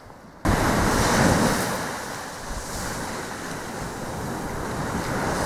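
Sea surf washing onto the shore with wind buffeting the microphone, cutting in suddenly about half a second in after a fainter stretch and swelling and easing with the waves.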